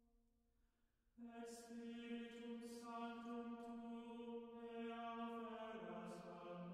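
Background music of a slow, soft vocal chant: a long held note begins about a second in and steps down to a lower note near the end.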